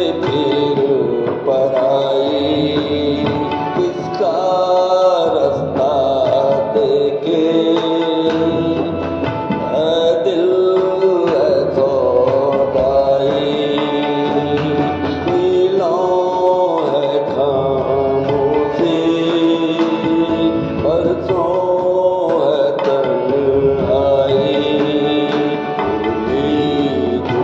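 Music: an instrumental passage of an unplugged Hindi film song, a gliding melody over steady percussion.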